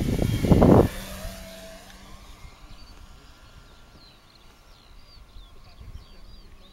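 Electric RC model Pilatus PC-21, its brushless motor and 17x12 propeller whining through a fast low fly-by. The sound is loudest in the first second as the model passes close, then fades away over the next couple of seconds as it flies off.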